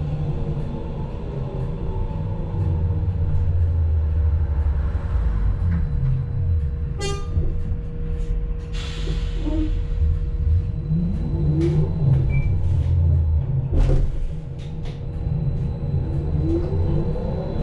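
Ride noise inside a New Flyer E40LFR electric trolleybus on the move: a constant low road rumble and a steady hum, with scattered rattles and clicks. A whine rises in pitch twice, near the middle and near the end, as the traction motor pulls. A short hiss comes about nine seconds in.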